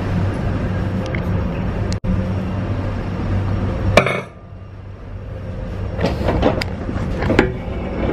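Steady low hum of shipboard machinery and ventilation in a steel passageway. About four seconds in a door fitting gives a single loud clank, and the hum falls away. A few lighter knocks and clicks follow.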